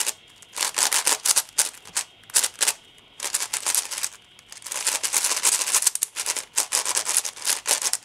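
MoYu AoFu 7x7 speedcube being turned fast by hand: rapid runs of plastic clicking and clattering layer turns, with short pauses about two seconds in and about four seconds in.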